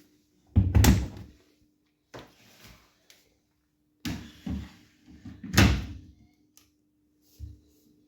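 Bosch front-loading washing machine being handled: a series of door-like thumps and bangs, the loudest about half a second in and again about five and a half seconds in.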